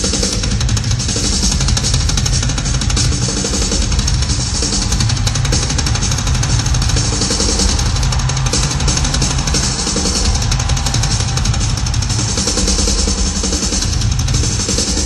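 Loud rock music driven by a drum kit: rapid bass drum strokes under a continuous wash of cymbals.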